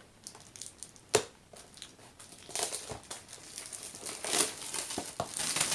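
Packaging crinkling and rustling as it is handled, with a sharp click about a second in; the crinkling becomes continuous from about halfway through.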